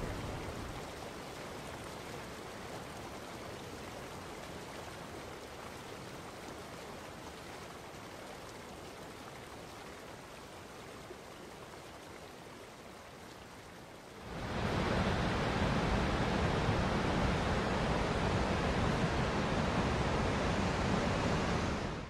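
Rushing whitewater of the Potomac River rapids, a steady noise of churning water. It fades a little, then about two-thirds of the way through it turns suddenly louder and fuller.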